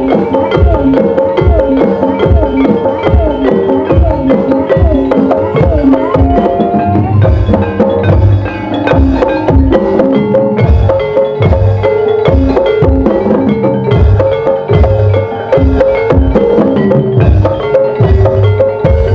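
Live gamelan music of the kind played for ebeg dance: deep hand-drum strokes under fast, ringing metallophone and gong-chime notes in a steady, busy pattern.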